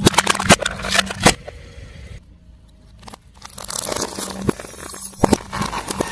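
Brittle objects cracking and crackling as a car tyre crushes them: a quick run of sharp snaps in the first second or so, a short lull, then dense crackling with more snaps, over a faint steady hum.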